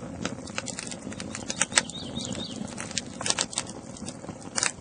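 Wood fire of split sticks crackling in a stone fireplace, with irregular sharp pops over a low, steady hiss of flame.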